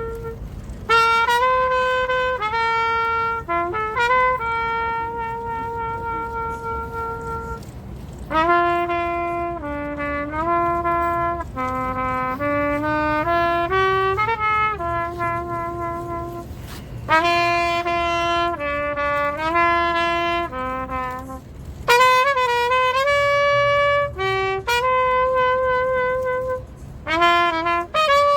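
Solo trumpet playing an unaccompanied, slow jazz-inflected melody in phrases: long held notes mixed with quick runs, with short breaths between phrases.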